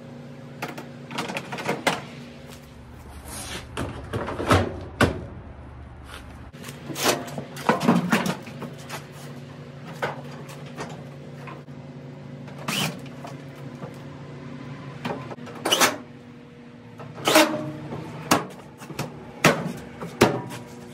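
Knocks and clanks of a Samsung dryer's sheet-metal panels and door being handled and fitted back into place: a dozen or so sharp impacts spread irregularly, over a steady low hum.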